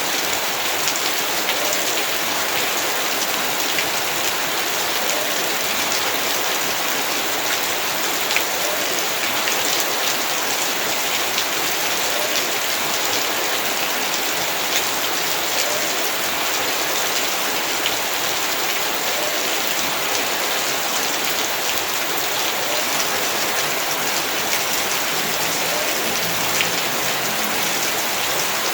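Heavy rain falling steadily, a dense even hiss of rain on surfaces with scattered sharper drop ticks.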